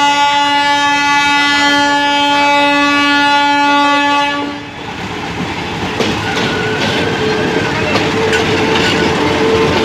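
Diesel locomotive horn blaring in one long steady blast that cuts off about four and a half seconds in, followed by the rumble and clatter of the train's wheels running over a railway switch, with a steady hum underneath.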